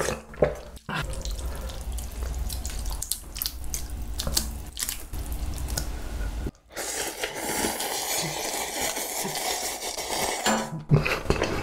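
Close-miked slurping of ramyeon noodles and spicy broth, wet and crackly. About six and a half seconds in it breaks off, then comes a long steady slurp of broth drunk from a cup.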